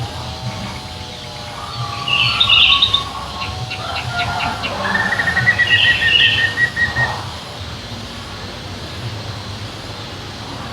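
Songbird singing: short bursts of chirps and whistled notes, with a rapid trill in the middle, over a steady low rumble.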